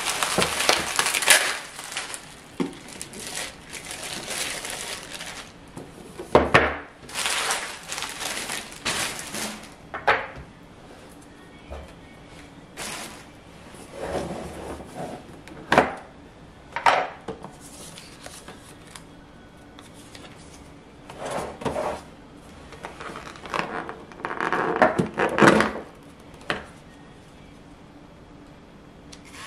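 Bubble wrap and plastic packaging crinkling as hands tear it off a boxed hair clipper, for about the first ten seconds. Then scattered short rustles, clicks and knocks as the box lid comes off and the clipper is lifted out of its plastic tray.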